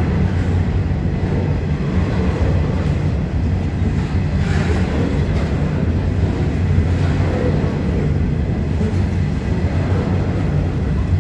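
Freight train's hopper wagons rolling steadily past a station platform: a continuous low rumble of wheels on rail.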